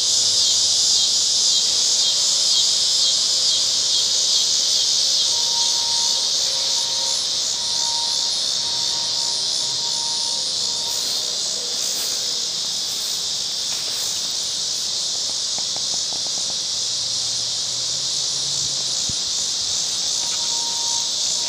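Loud, steady insect chorus, a dense high-pitched buzz. Faint short beeps sound several times near the middle and once near the end.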